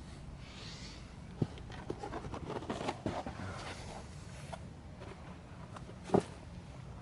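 Footsteps with scattered light knocks and rustles of the rubber floor mat being handled, and one sharper thump about six seconds in.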